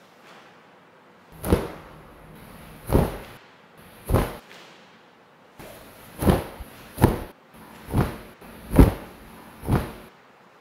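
Taekwondo uniform (dobok) fabric snapping sharply with each fast punch and block, eight cracks spaced about a second apart, with the basic movements done at full speed.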